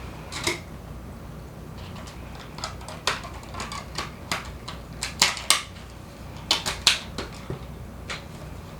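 Plastic and paper packaging crinkling and clicking as a potted miniature violet is unwrapped by hand: an irregular run of short, sharp crackles, thickest around the middle.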